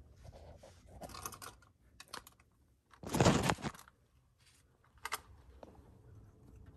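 Scattered light clicks and rustling of hands handling the phone and parts, with one louder scraping rustle lasting under a second about three seconds in.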